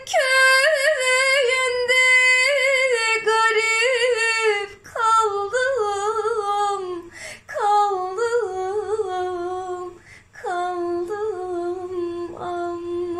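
A woman singing a Turkish folk melody unaccompanied, in four long drawn-out phrases with ornamented, wavering turns, each phrase sliding down at its end.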